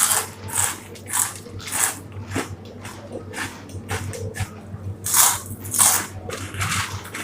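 Crunchy Kurkure corn puffs being bitten and chewed fast, with irregular sharp crunches about one to two a second, the loudest a little past halfway.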